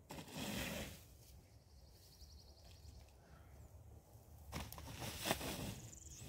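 Short bursts of scraping and rustling as a long bar is worked against plywood on a wooden shed floor frame, with one sharp knock about five seconds in.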